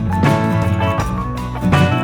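Background music: a plucked guitar tune with a bass line and a steady beat.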